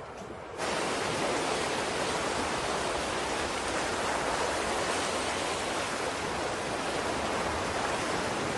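Surf washing onto a sandy beach: a steady rushing of waves that starts abruptly about half a second in.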